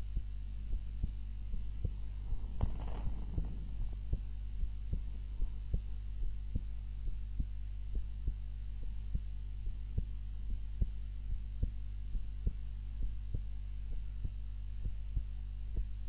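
A sleeping woman's heartbeat, heard close-up, beating in a steady, even lub-dub rhythm over a constant low hum; she is lying on her back. A brief rustling noise comes about three seconds in.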